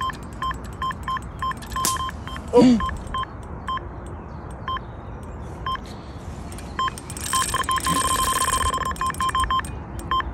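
Electronic carp bite alarm beeping in quick, uneven bursts as a fish pulls line off the rod during a run. The beeps crowd into an almost unbroken tone about seven seconds in. A short sound falling in pitch is heard about two and a half seconds in.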